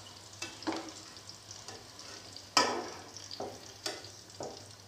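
Potato sticks sizzling in hot oil during their first, par-frying stage, with a soft steady sizzle. A metal spoon and wire skimmer clink and scrape against the metal pot several times as the fries are lifted out; the loudest clink comes about two and a half seconds in.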